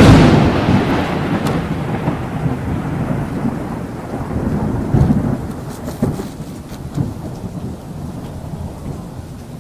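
Thunderstorm: a loud thunderclap breaks at the start and rumbles on, slowly fading, with further rolls of thunder about five to seven seconds in, over steady rain.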